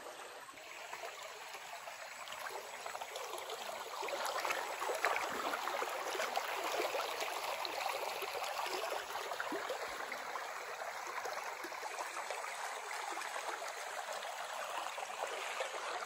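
Shallow, clear stream running over stones in a steady rush of water, a little louder from about four seconds in.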